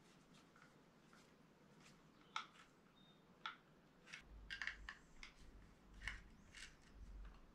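Near silence with faint small clicks and ticks of hands and tools working the wires and switch box while an electrical switch is wired, two sharper ticks about two and a half and three and a half seconds in, and a low handling rumble from about four seconds in.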